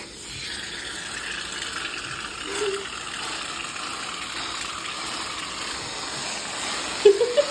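Several Reddi-wip aerosol whipped cream cans spraying at once, giving a steady gushing hiss as the cream streams out of the nozzles. A short voice sound comes about two and a half seconds in, and a louder voice cuts in near the end.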